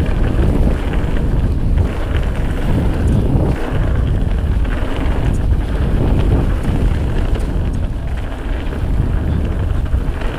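Wind buffeting the camera microphone as a mountain bike descends fast down a dirt trail, a loud, steady low rumble, with the tyres rolling over the packed dirt underneath.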